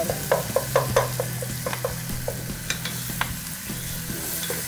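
Masala sizzling in a pot on a gas stove while a spoon stirs it. A run of light clicks and knocks from the spoon against the pot comes in the first couple of seconds, then thins out.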